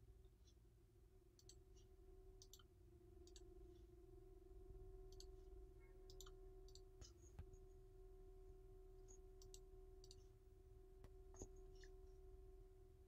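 Near silence: scattered soft computer-mouse clicks over a faint steady electrical hum.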